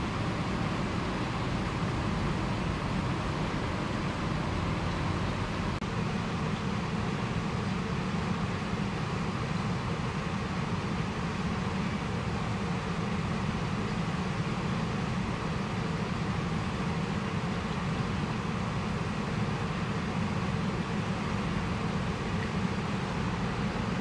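Steady low rumble and hiss of background noise, unchanging throughout, with no distinct events.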